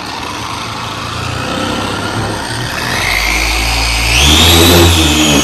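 Corded electric polisher with a soft foam pad switching on at low speed and buffing polish into a lawn tractor's plastic hood. It starts suddenly, and its whine rises in pitch about three seconds in, stepping up again about a second later before holding steady.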